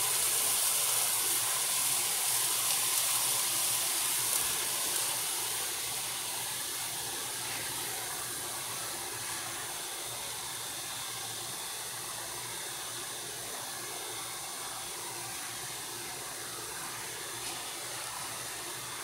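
Air-conditioner cleaning acid fizzing on an aluminium drink can, a steady hiss that slowly fades over the first several seconds and then holds. It is the sound of the acid corroding the aluminium.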